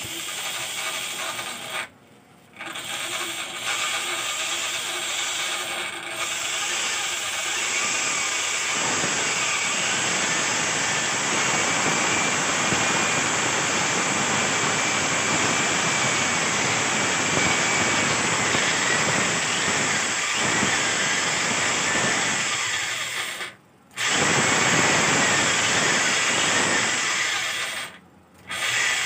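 Electric drill boring a concealed-hinge cup hole into plywood: a steady motor whine with rough cutting noise as the bit is rocked side to side so it bites. The drill stops briefly about two seconds in and twice near the end.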